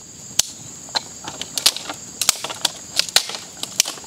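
Dry sticks snapping as they are broken by hand: a run of sharp, irregular cracks, about a dozen in four seconds.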